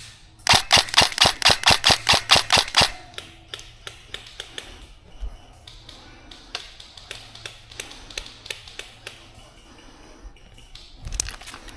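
Airsoft gun firing a rapid string of about fifteen shots, roughly seven a second, for about two seconds. After that come scattered fainter shots and clicks.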